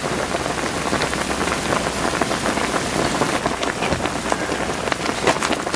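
A pot of duck soup boiling hard over a wood fire with the lid off: a steady bubbling hiss dotted with many small pops.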